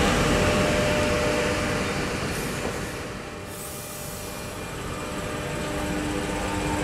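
X'Trapolis electric train at a station platform: wheel and motor noise fades over the first three seconds, then builds again. The traction motors' whine comes back near the end as the train pulls away.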